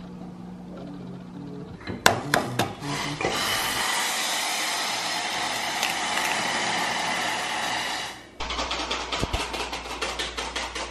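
Kitchen prep sounds: a few sharp knocks, then several seconds of loud steady rushing noise that stops abruptly. After that comes a quick even clicking, about five a second: a wire whisk beating against a mug.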